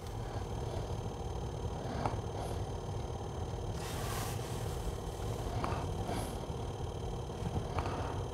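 Steady low rumble and hum inside a car's cabin, with a few faint clicks.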